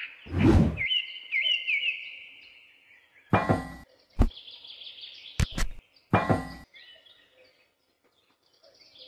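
Birds chirping in a repeated falling call, over a short whoosh at the start and a few sharp knocks and clicks between about three and seven seconds in as a toy water pump model is set down and handled.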